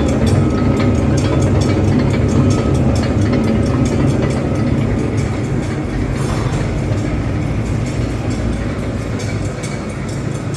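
Palmia 255 coarse food grinder running, a steady heavy motor hum with a dense grinding rumble, easing off a little towards the end.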